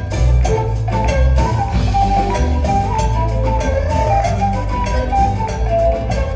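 Instrumental passage of Peruvian music played by a live ensemble: a steady percussion beat under a bass line and a quick melody in the middle register.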